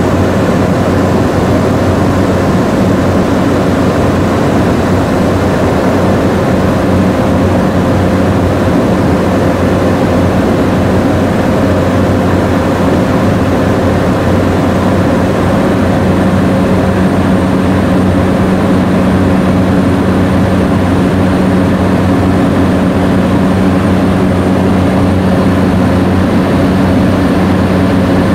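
Aircraft engines and airflow heard from inside the cabin: a steady drone with a low hum, as the plane descends on approach to land.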